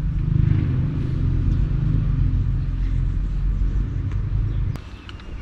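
A loud, steady low rumble that cuts off suddenly with a click near the end.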